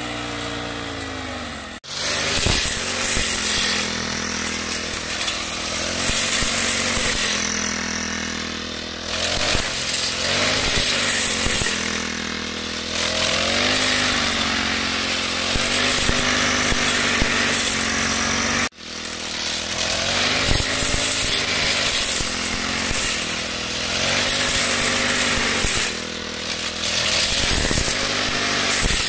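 Backpack brush cutter's small petrol engine running at high revs, its pitch dipping and recovering as the spinning cutting head bites into dry grass. The sound cuts off abruptly twice and starts again.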